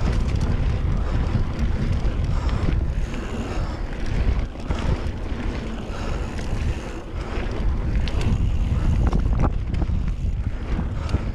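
Wind buffeting a GoPro's microphone on a moving mountain bike, with the tyres rolling over a dirt trail and scattered clicks and rattles from the bike over bumps.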